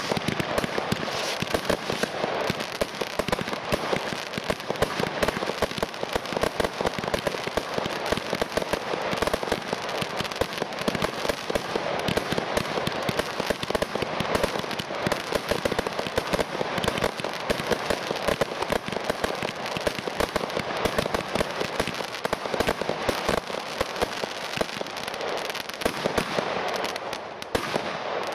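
Firework battery ('Ghosthunter') firing: a dense, unbroken run of sharp cracks and pops as shots rise and burst into crackling stars. The crackling thins out near the end.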